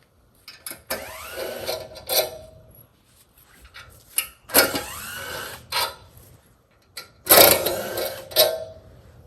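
Cordless drill-driver backing out screws, three runs of about a second each, its motor pitch rising as it spins up; the screws held the milling ladder to the log.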